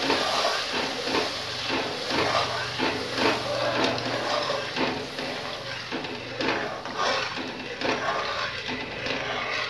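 Milk poured slowly into a hot kadhai of ghee-roasted moong dal, sizzling and bubbling with irregular crackles, while a metal spatula stirs against the pan. A low steady hum runs underneath.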